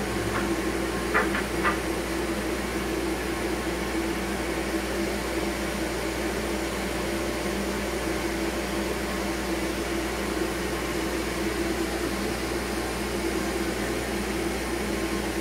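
Workshop dust collection system running with a steady hum and rush of air, with a few light clicks about a second in.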